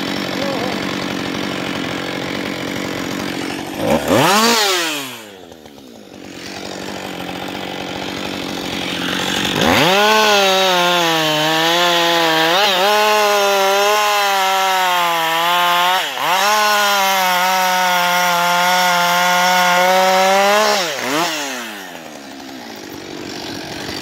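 Husqvarna 560 XP two-stroke chainsaw idling, with a quick blip of the throttle about four seconds in. About ten seconds in it goes to full throttle and bucks a felled log for roughly ten seconds, its pitch wavering under load with a brief dip midway, then drops back to idle near the end.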